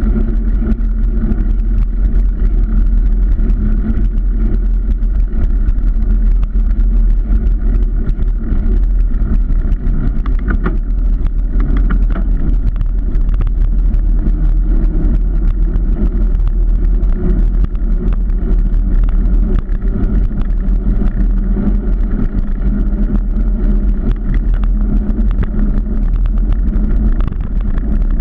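Car driving at a steady speed: a steady engine hum over road noise and a strong low rumble.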